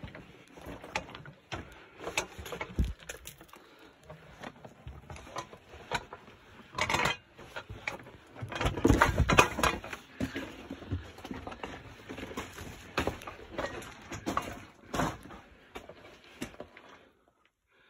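Footsteps crunching and scuffing on loose rock and gravel, with irregular knocks and small clatters of stones, busiest about halfway through.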